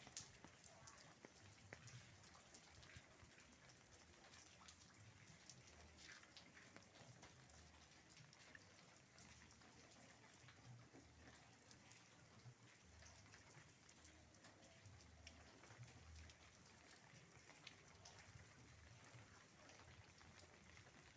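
Faint light rain falling, with scattered drops ticking irregularly on nearby surfaces over a soft steady hiss.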